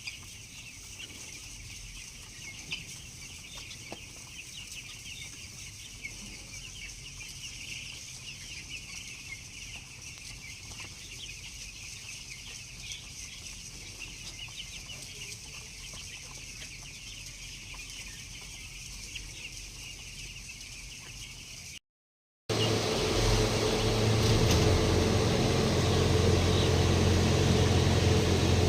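Four-day-old broiler chicks in a large flock peeping constantly, a dense high chirping. After a short break about 22 seconds in, a louder steady low machine hum takes over.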